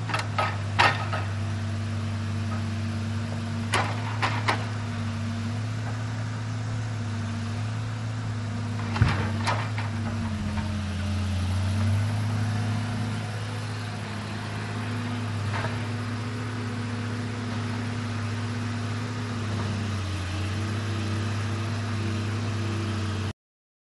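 Diesel engine of a log truck with a mounted knuckleboom loader running steadily, its pitch shifting a little now and then as the loader works, with several sharp knocks of logs being handled by the grapple. The sound cuts off suddenly near the end.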